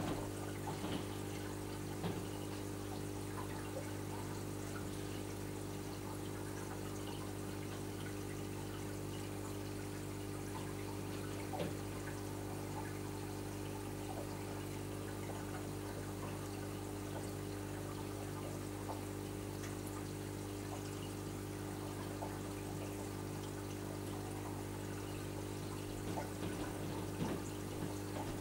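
Reef aquarium's water pumps running with a steady hum, under a continuous trickle and splash of circulating water at the surface, with a few faint ticks here and there.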